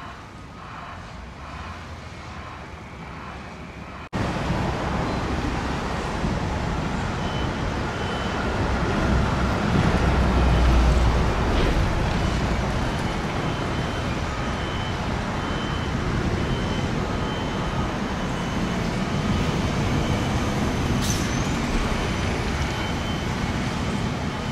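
Road traffic noise: a steady mix of engine and tyre rumble that gets abruptly louder about four seconds in. It swells to its loudest, deepest rumble around ten seconds in.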